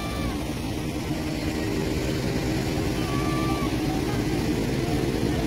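Steady low rumble of motors with faint voices mixed in.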